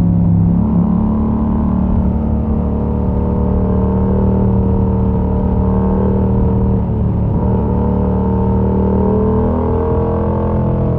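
Yamaha MT-07's parallel-twin engine running through a Mivv exhaust with the dB killer removed, heard from onboard while riding. The engine note holds fairly steady, dips about two-thirds of the way through and rises again near the end.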